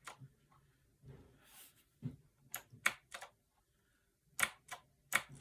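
Mechanical keyboard keys being pressed: sharp clicks in small groups, one at the start, three or four about two to three seconds in and a few more near the end, as key combinations are tried to switch the keyboard into Bluetooth mode.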